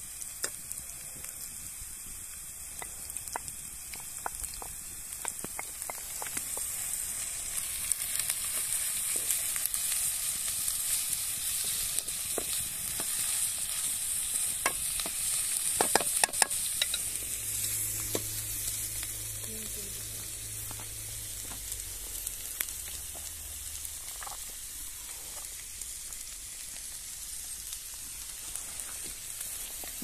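Food sizzling and frying in a pan over a wood fire, a steady hiss that swells towards the middle and then eases, with scattered sharp clicks and pops, the loudest cluster a little past halfway.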